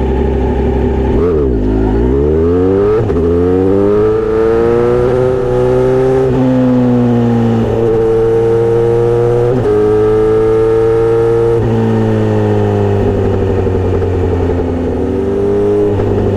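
Kawasaki motorcycle with a Misty Kintaro short straight-pipe exhaust, being revved. The note blips up and down about a second in, climbs steadily over the next few seconds, then holds high with several brief dips.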